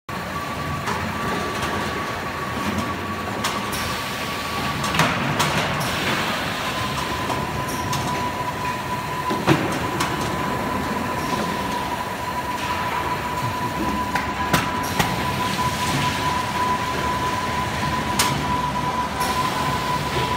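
Automatic net-weight oil filling machine for 18 L buckets running: a steady mechanical hum with a constant high whine that drops slightly in pitch about five seconds in, and a sharp click or knock every few seconds.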